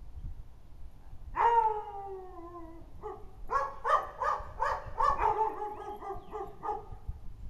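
A dog gives one long howl that slides down in pitch, then a quick run of short, pitched barks, about two a second, for several seconds.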